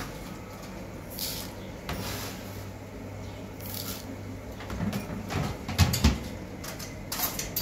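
Dry rice being scooped out of a plastic storage bin and poured into a plastic bowl: several short rustling pours, with plastic knocks and clunks from the bin and its lid, the loudest a pair of knocks about six seconds in. A faint steady low hum sits underneath.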